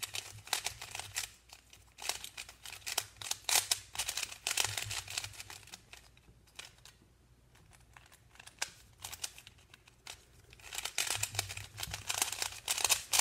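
Plastic clicking and clacking of a Z-Cube bandaged 3x3 puzzle cube being turned and scrambled by hand in quick runs of layer turns. The turning goes sparse and quieter for a few seconds in the middle, then picks up fast again near the end.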